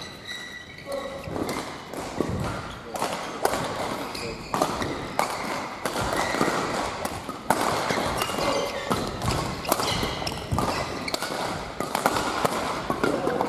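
Badminton rackets hitting a shuttlecock in fast doubles rallies, a sharp crack about every half second to a second, with players' feet thudding on the court floor.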